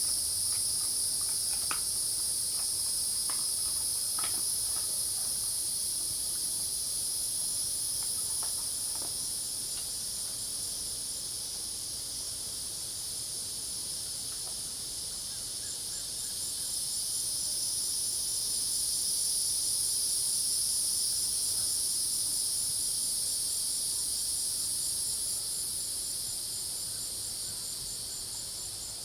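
Dense chorus of crickets and cicadas: steady high-pitched trilling in several layers, one of them pulsing rapidly. It eases slightly and swells again partway through.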